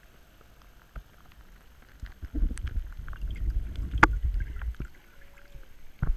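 A GoPro in its waterproof housing moving underwater, heard through the housing: a muffled low rumble and slosh of water from about two seconds in. There is a sharp knock about four seconds in and another near the end.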